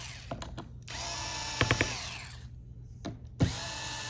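Small electric screwdriver running in two short spells, about a second in and again near the end, backing out the captive screws of a laptop's bottom panel. Each spell brings a quick run of clicks, the sign that the screw is loose. The whine falls away as the first spell stops.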